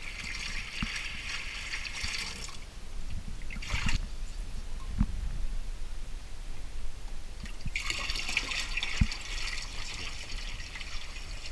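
Water poured from a plastic jug splashing into a boat's plastic live well; the pouring stops about two and a half seconds in, with a brief splash near four seconds, and starts again near eight seconds. A few dull knocks sound in between.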